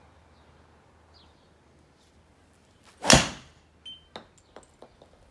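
Golf driver striking a ball off a hitting mat: one sharp crack about three seconds in. A short high beep and a few light clicks follow.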